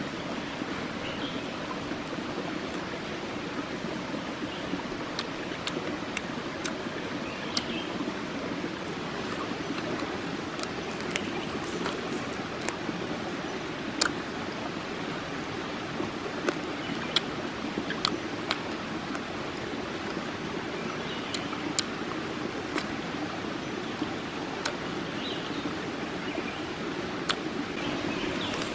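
A shallow, rocky stream babbling steadily, with scattered sharp clicks and smacks of chewing close to the microphone, the loudest about halfway through.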